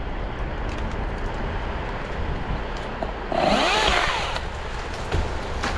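Milwaukee battery chainsaw revving in a burst of about a second, its pitch wavering, about three seconds in, over the steady low rumble of the crane truck's engine.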